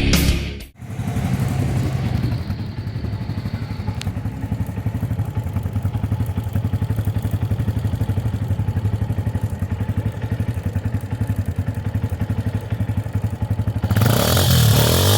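Bajaj Pulsar 160's single-cylinder four-stroke engine idling through an aftermarket bullet-style full-system exhaust, with an even, rapid beat. Near the end it is revved and gets much louder.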